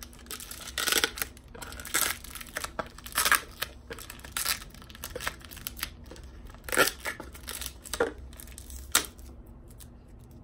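Tape and cardboard tearing as the taped end of a cardboard poster mailing tube is picked at and pulled open: a series of short, sharp rips and crinkles.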